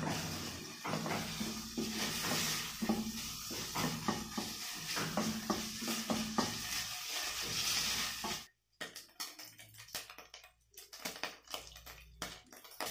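Pork pieces frying in a little oil in a stainless steel pot, sizzling, while a wooden spoon stirs and scrapes against the pot. About eight seconds in the sizzle cuts off abruptly, leaving scattered scrapes and taps of the spoon.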